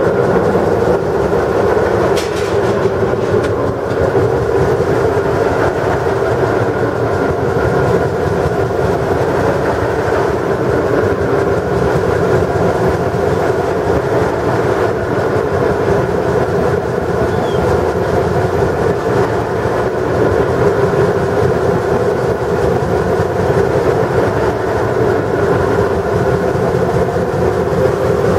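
A TE3 diesel locomotive's 2D100 two-stroke opposed-piston diesel engine running steadily while warming up after a cold start, heard close up inside the engine room.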